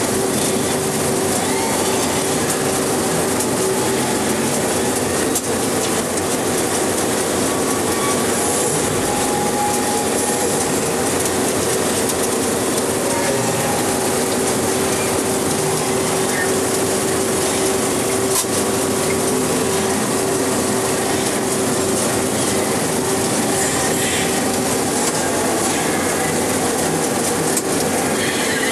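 35mm film projector running: a steady mechanical clatter and whir from the film transport, with a steady hum underneath.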